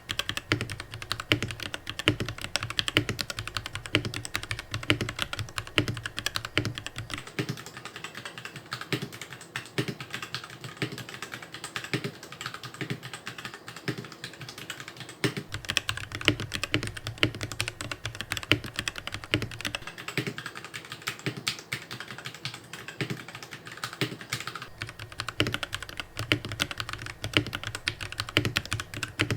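Steady, irregular typing on a computer keyboard, many quick key clicks a second, picked up by a budget BM-11 USB condenser microphone as a sound test.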